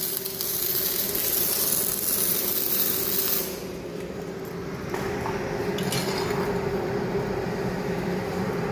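MIG welding arc hissing and crackling for about three and a half seconds, then cutting off. A steady machine hum carries on underneath and after it.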